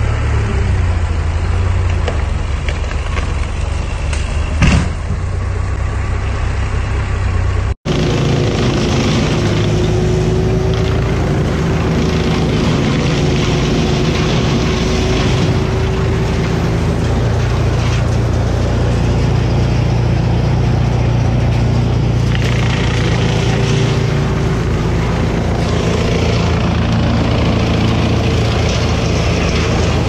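A wood chipper's engine running steadily at a constant pitch. Over the first several seconds an engine drone runs with one sharp crack about five seconds in. After an abrupt cut the chipper's steady engine sound carries on to the end.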